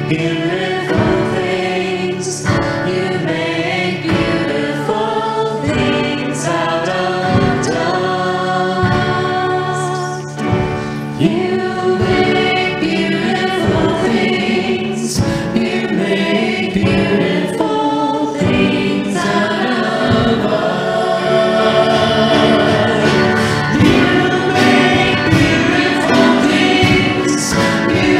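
A church worship team of women and men singing together into microphones, with instrumental accompaniment and a steady beat.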